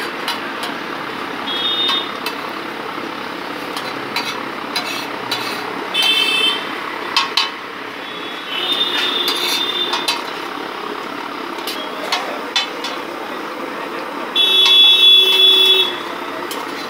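Metal spatula clanking and scraping on a large flat iron tawa while keema fries in oil with a steady sizzle. Street traffic runs under it, with vehicle horns sounding several times; the longest and loudest blast comes about fourteen seconds in.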